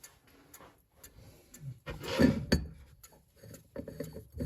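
Mechanical submarine clock movement ticking steadily after being wound and started. A brief rubbing, handling noise about two seconds in as the clock is handled and closed.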